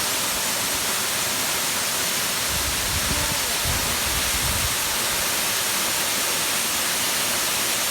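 Waterfall: a steady, loud rush of falling water, with a few brief low rumbles about halfway through.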